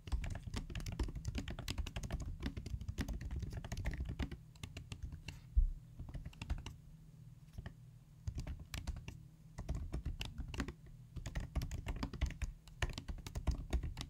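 Typing on a computer keyboard: quick runs of key clicks in bursts with short pauses, as a SQL statement is keyed in. A single louder knock comes about five and a half seconds in.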